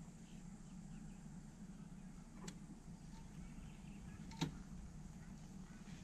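Faint outdoor quiet with a low steady hum and two small clicks, about two and a half and four and a half seconds in, the second one louder.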